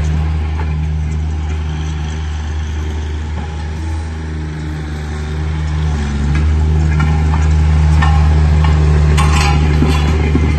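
Kubota diesel engine of a BOMAG BW80 ADH-2 double drum roller running steadily as the roller drives, with a low, even hum. It grows louder from about six seconds in as the roller comes closer, with a few light metallic rattles near the end.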